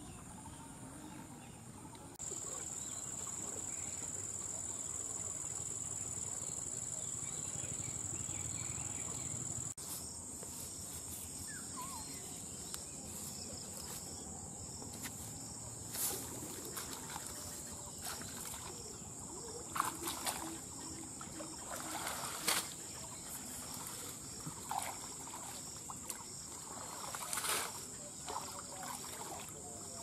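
Insects buzzing in a steady high-pitched drone throughout, which gets louder about two seconds in. From about ten seconds in, water splashes and rustling come and go as a man wades in a shallow canal clearing grass by hand. The sharpest splashes fall around the middle and near the end.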